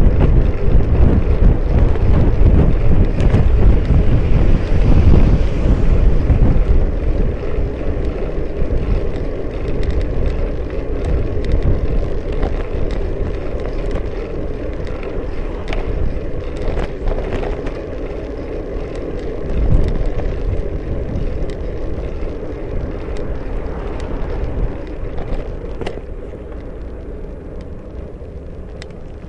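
Wind buffeting the microphone of a bicycle's rear-mounted camera while riding, over road and tyre rumble, with scattered light clicks and knocks from the bike and road. The rumble is heaviest in the first few seconds and eases off gradually after that.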